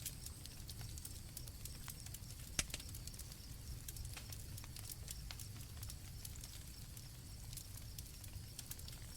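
Campfire crackling with scattered pops over a low rumble, one sharper pop about two and a half seconds in, with crickets chirping steadily in the background as a thin high tone.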